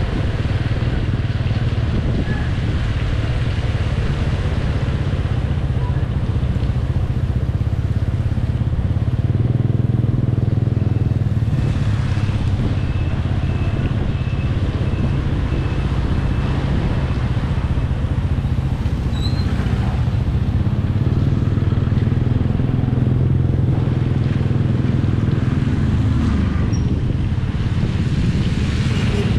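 Motorcycle engine running steadily under way, a low drone with a constant rushing hiss of wind and road noise over it. A faint, evenly repeated high beep sounds for a few seconds in the middle.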